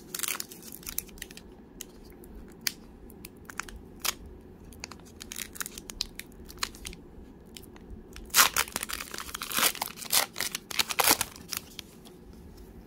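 A baseball card pack's wrapper being handled and torn open by hand, crinkling and crackling. A louder run of tearing crackles comes about eight to eleven seconds in.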